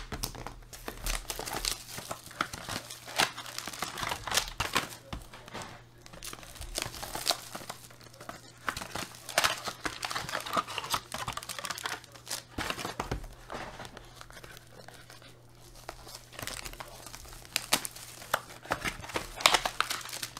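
Plastic wrapping being torn and crumpled while sealed trading-card hobby boxes are unpacked and handled: irregular crinkling and crackling throughout.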